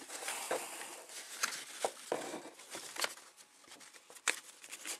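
Balsa sticks and sheets from a model airplane kit being handled in their cardboard box: light rustling with scattered clicks and taps as the wooden pieces knock together, the sharpest a little after four seconds in.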